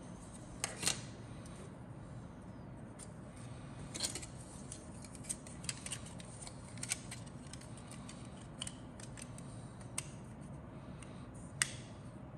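Grey injection-moulded plastic model-kit parts being handled and the fuselage halves pressed together in a dry fit. About a dozen irregular sharp plastic clicks and taps, the strongest about a second in and near the end.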